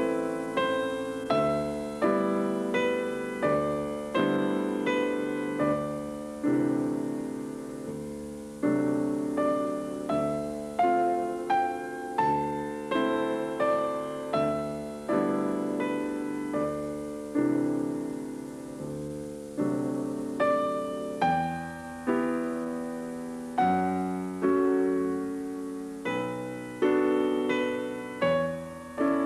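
Slow piano music over the end credits: single notes and chords struck one after another, each fading away before the next.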